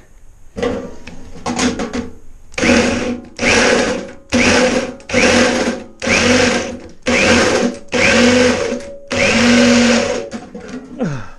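Hand-held power drill with a step drill bit cutting into stainless steel sheet. The trigger is pulsed: a few short blips, then about nine bursts about once a second, each a motor whir with a high scraping edge. The bit is struggling to cut the stainless.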